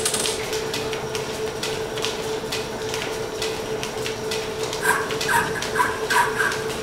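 A belt-driven 1917 Brown & Sharpe turret lathe running off a line shaft, with a steady hum and a rapid clatter of clicks while the tool cuts brass. About five seconds in, a run of short squeaks starts, roughly three a second.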